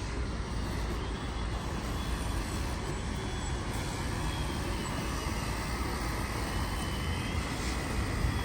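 Steady road traffic noise with a deep, even low rumble and no single event standing out.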